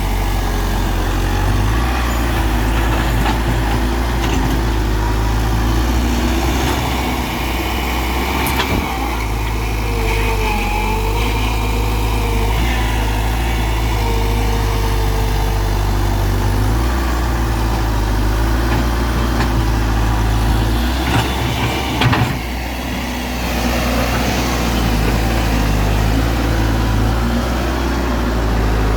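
JCB backhoe loader's diesel engine running steadily while digging and loading, with two sharp knocks, one about a third of the way in and one about three quarters of the way in.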